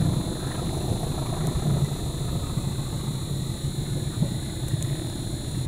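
Diesel locomotive hauling a freight train, a steady low engine rumble, with a steady high-pitched whine over it that cuts off near the end.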